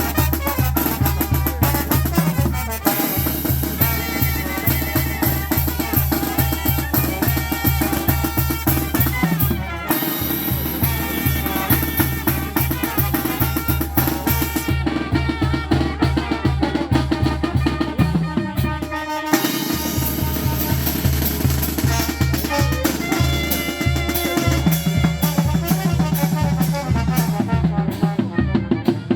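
Tamborazo band playing: brass and reed lines over a steady, driving beat on the tambora bass drum and snare with cymbal.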